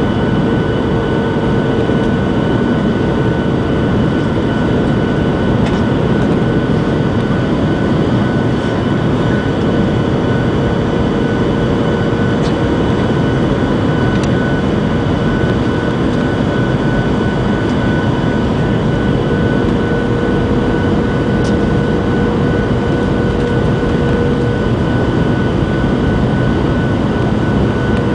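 Cabin noise inside a Boeing 737-700 on approach to land: the steady roar of its CFM56-7B turbofan engines and the airflow over the fuselage, with a steady whine from the engines on top.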